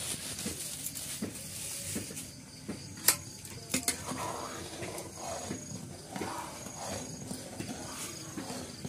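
A steel ladle knocks sharply twice against an iron karahi, then stirs and scrapes through thick simmering milk and rice. Insects chirp faintly in the background.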